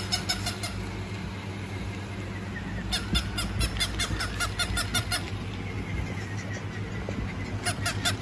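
Plush toy dog giving quick electronic yips, about eight a second, in three runs: to just under a second in, from about three to five seconds, and again near the end.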